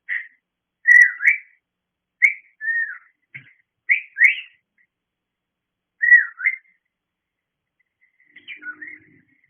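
Cockatiel whistling in short swooping notes that rise and fall, several brief phrases with pauses between them: attention-seeking calls.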